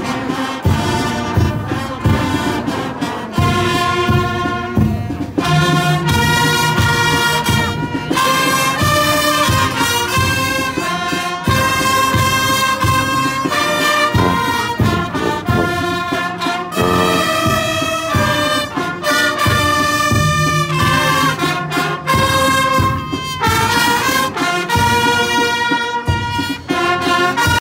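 Marching brass band playing a tune: trumpets, trombones and sousaphones together, with held bass notes and a steady beat.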